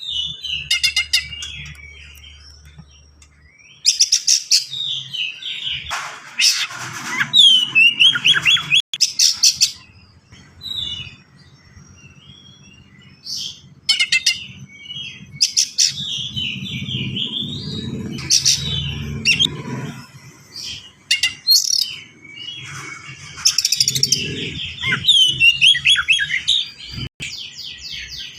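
Oriental magpie-robin singing in fast, dense bursts of varied phrases: rapid trills and quick down-sweeping notes, broken by short pauses, over a faint low background hum.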